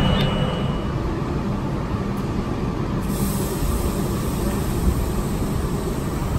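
R42 subway train, a steady low hum and rumble. About three seconds in, the sound changes to the train at an open-air elevated platform, with more hiss.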